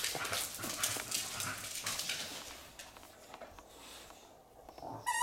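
A bulldog's claws clicking and pattering on a hardwood floor as it runs off to fetch, dying away after a couple of seconds. A brief high squeak comes right at the end.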